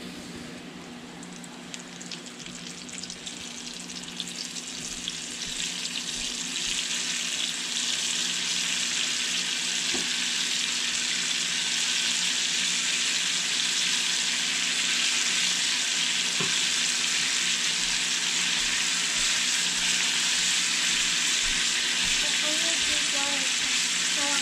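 Floured burbot pieces frying in hot oil in a cast iron skillet: a dense, steady sizzle that grows louder over the first several seconds as the last batch goes into the oil, then holds steady.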